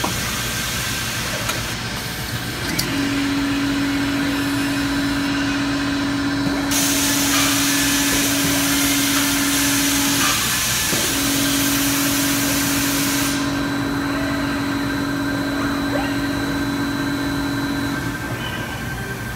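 Robotic assembly cell running: steady machinery noise with a hum that holds one pitch for about seven seconds, stops briefly, then holds for about seven seconds more. A loud hiss runs for several seconds in the middle.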